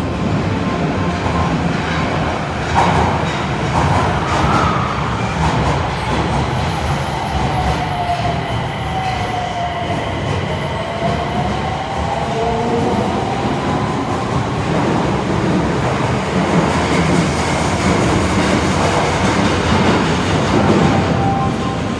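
Nagoya Subway N1000-series train pulling out of a station, its Mitsubishi IGBT VVVF inverter whining under rumbling wheel and rail noise. The inverter tone dips and then climbs as the train gathers speed, and the rumble stays as the train runs into the tunnel.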